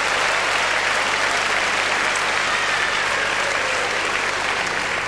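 Large theatre audience applauding, a steady dense clapping that eases slightly near the end.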